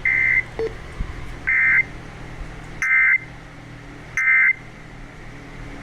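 Emergency Alert System SAME digital data bursts from a weather radio broadcast: short, buzzy two-tone squawks, four of them about a second and a half apart. Such short bursts coming right after a warning message are the end-of-message code.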